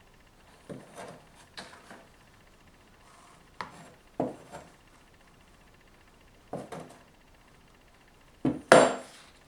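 Light knocks and clatters of a plastic lid and containers being handled on a work surface, in small clusters every second or two; a sharp double knock near the end is the loudest.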